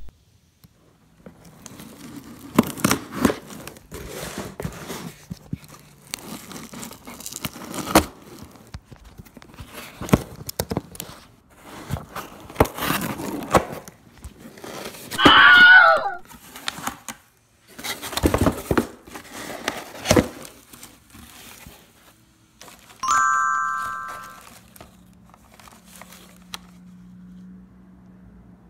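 A utility knife slitting the tape on a cardboard shipping box, then the box being torn open, with repeated scraping, ripping and crinkling of cardboard, tape and packing. About halfway through there is a loud squealing rip, and about two thirds in a short ringing chime sounds and fades.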